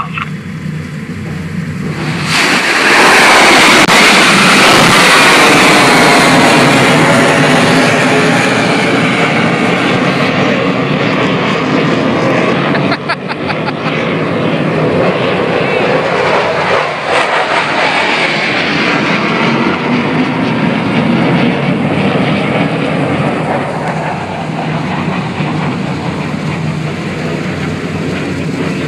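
Tomahawk cruise missile launched from the ship: a sudden blast about two seconds in, then the loud rushing roar of its rocket booster with a sweeping, swirling tone, easing off slowly as the missile climbs away.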